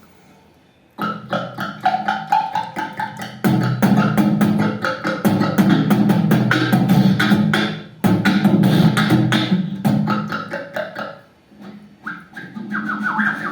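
Vocal beatboxing: a fast, even rhythm of mouth-made clicks and drum sounds over a steady low tone, starting about a second in, with a brief drop near eight seconds and a lull around eleven seconds before it picks up again.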